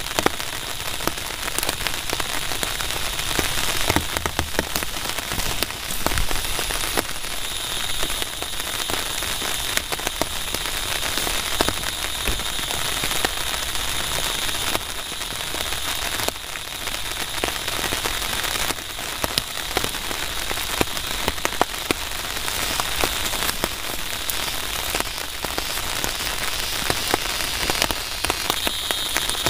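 Steady rain falling, with many sharp individual drop hits close by.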